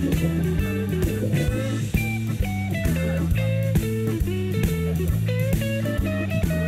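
Background music: a guitar melody with bent notes over steady bass and drums.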